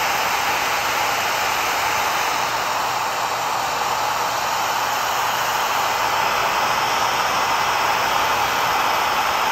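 Hot-air blower running steadily, a constant rushing hiss of air aimed at the PVC to soften a glued spot.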